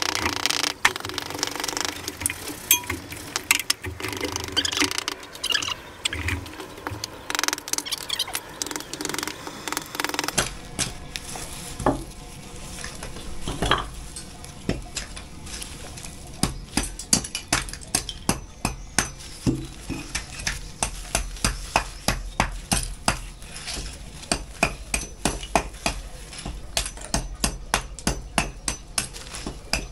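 Irregular clatter and scraping of brick and mortar debris, then from about ten seconds in a steady run of sharp hammer strikes on brick and mortar, about two a second, with a short metallic ring.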